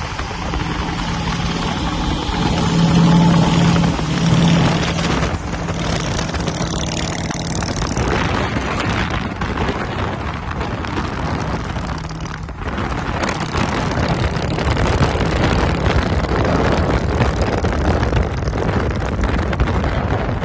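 Highway vehicle noise: a Harley-Davidson V-twin cruiser with long fishtail exhaust pipes running alongside a moving car, over the car's road and wind rush. The engine drone is loudest about three to five seconds in.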